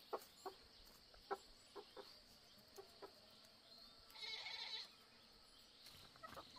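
Faint, scattered soft clucks from a chicken being handled, with a brief scratchy rustle about four seconds in.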